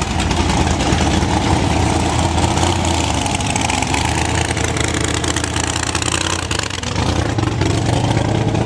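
Big-block Chevrolet V8 idling steadily, with a short dip in level about seven seconds in.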